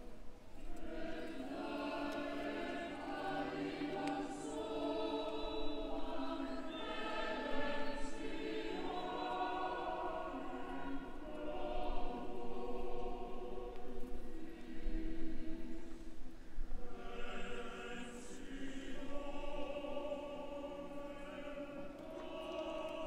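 A choir singing sacred liturgical music in long, held notes that move slowly from phrase to phrase.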